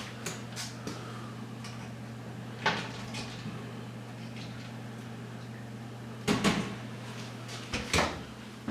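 Handling noises of a plastic electrical plug and hand tools being picked up and worked: scattered sharp clicks and knocks, one a little before 3 seconds in and a cluster past 6 seconds, over a steady low hum.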